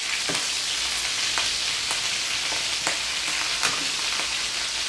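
Marinated chicken pieces sizzling in hot oil in a metal kadhai while being browned, with the steel ladle clicking and scraping against the pan a few times as they are stirred.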